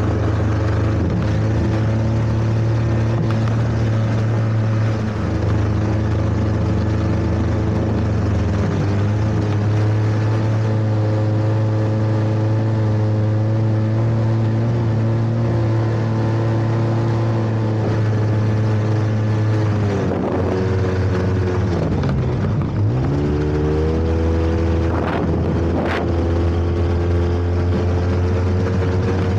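Snowmobile engine running steadily under way over snow. About two-thirds of the way through, the revs drop sharply and then climb back up.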